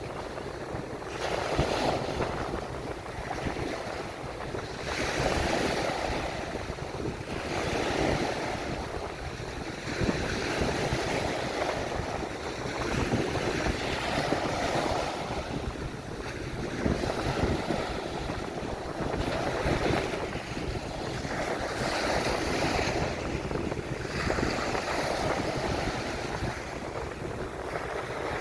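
Small ocean waves breaking and washing up the beach, a swell of surf every two to three seconds over a steady rush.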